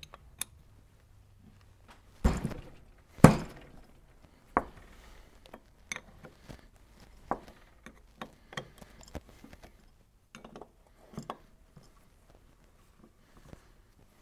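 Metal knocks and clicks of a combination wrench working the main jet access plug on the float bowl of an S&S Super B carburetor, the cast carburetor body handled against the bench. Two loud knocks come about two and three seconds in, then a lighter knock and a string of small clicks and taps.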